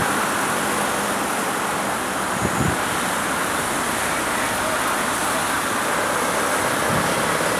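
Steady city street traffic noise, with a vehicle engine running at low speed.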